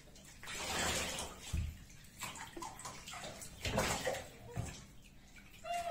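Water poured from a plastic jug over a wet cat, splashing into a bathtub in two main bursts, about half a second in and again about three and a half seconds in, with smaller splashes between.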